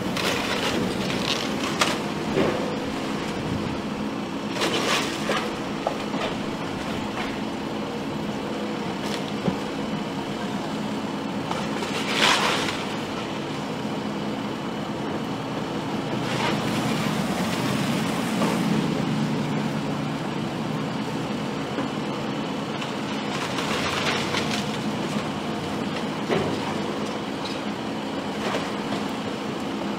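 A heavy machine's engine running steadily, with crashes and crunching of debris every few seconds as a house is demolished.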